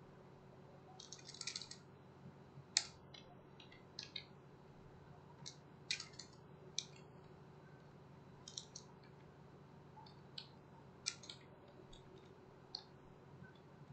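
Computer keyboard keys tapped in short, irregular clusters of clicks as text is typed and deleted, over a faint steady hum.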